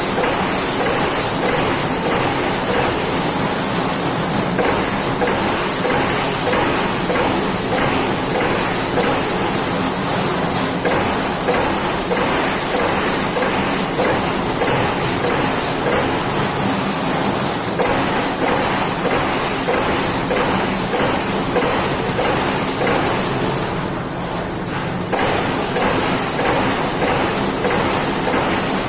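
Amada Pega 357 CNC turret punch press punching sheet metal: a steady run of rapid, evenly spaced punch strokes over the machine's hum and a steady high whine, with a short lull about five seconds before the end.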